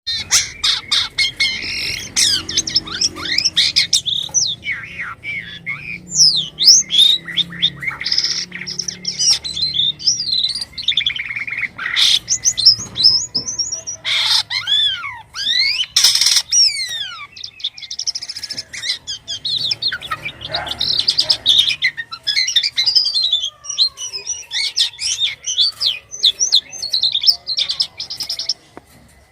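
A jalak kapas starling singing a long, varied song without pause. It mixes rapid chattering trills, sliding whistles and harsh squawking notes.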